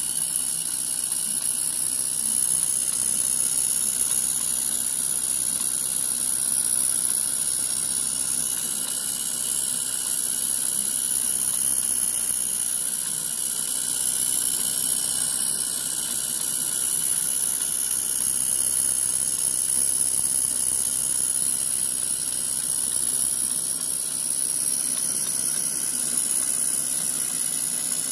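Gas burner of a Regner live-steam tram power unit hissing steadily as it fires the boiler.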